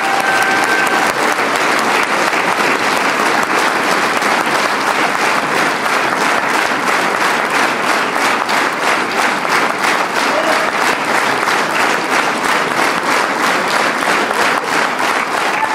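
A full theatre audience applauding, with the many claps falling into rhythmic clapping in unison partway through.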